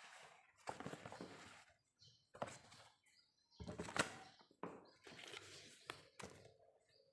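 Cardboard product boxes being handled and stood up on a table: scraping and rustling with several sharp knocks as they are set down, the loudest about four seconds in.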